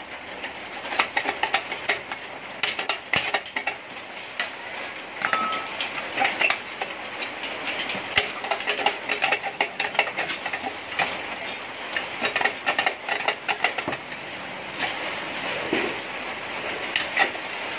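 Rapid, irregular metallic clicks and scrapes of a hand tool working at the end of a steel motorcycle muffler canister as it is being pried open. Steady rain hisses underneath and grows louder near the end.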